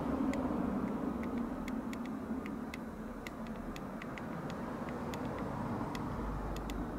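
Steady low background rumble with scattered small clicks, two or three a second at irregular intervals.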